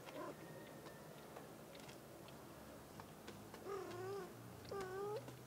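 House cats meowing: the end of one meow at the start, then a longer wavering meow about three and a half seconds in and another shortly after, its pitch rising at the end. A faint steady low traffic hum lies underneath.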